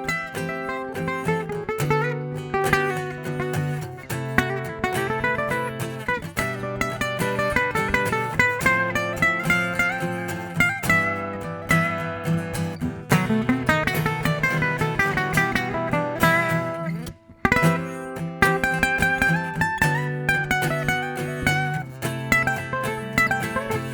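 Acoustic guitar playing an instrumental passage: picked melody notes over ringing chords, with a brief break about two-thirds of the way through.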